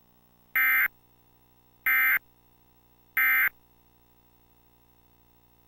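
Emergency Alert System end-of-message signal: three short bursts of SAME digital data, a harsh buzzy screech, about a second and a quarter apart. They mark the end of the alert.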